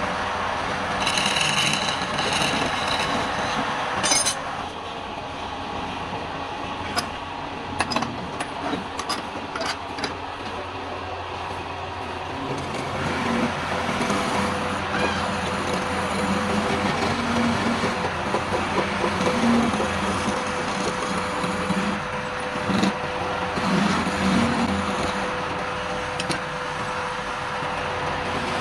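Wood lathe running with a steady hum while a turning tool scrapes and cuts a spinning palm-wood bowl, with a few sharp knocks in the first third.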